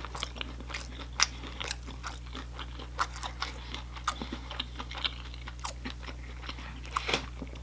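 Close-miked chewing and crunching of food, a steady run of irregular crisp crackles and clicks, over a low steady hum.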